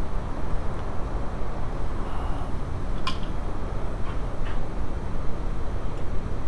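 A steady low rumble of background noise, with one sharp click about three seconds in and two fainter clicks about a second later, typical of hand tools touching metal while rocker arms are being worked on.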